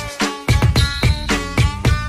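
Upbeat dance music with a steady, heavy beat.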